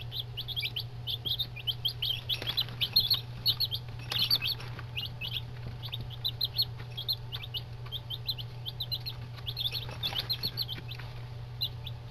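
A brood of eight-day-old chicks, Buff Orpingtons and Barred Rocks, peeping constantly in quick, high chirps, over a steady low hum.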